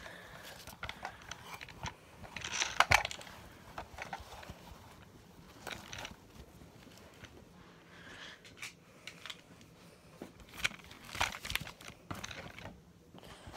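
Handling noise: scattered taps, knocks and rustling as a puppet and its props are moved about close to the microphone, loudest about three seconds in and again near the end.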